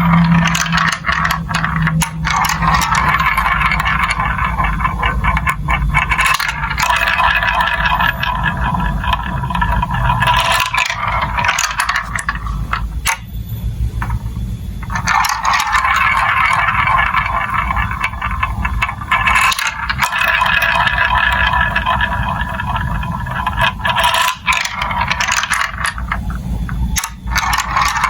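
Marbles rolling and rattling down a plastic building-block marble run: a steady clatter of many small clicks and scrapes, which drops out briefly about halfway through.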